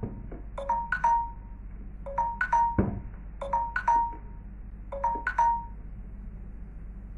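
Short electronic ringtone-style chimes in quick groups of three, the groups repeating about every one and a half seconds and stopping a little after five seconds in. A single low thump sounds about three seconds in.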